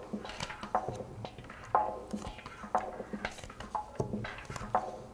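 Playing cards being dealt and laid down on a tabletop: light taps and slaps, one after another. Short ringing notes recur about once a second.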